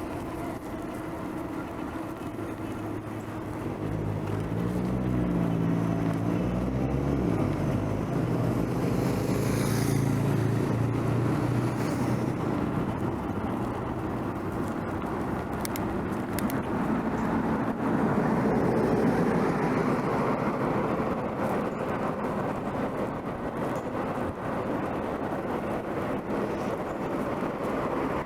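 City road traffic: steady tyre and engine noise from passing cars. About four to eight seconds in, one vehicle's engine is loudest, rising and falling in pitch as it goes by.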